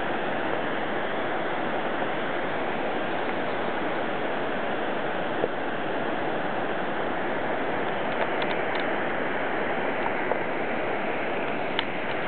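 Steady rushing of flowing river water, with a few faint clicks late on.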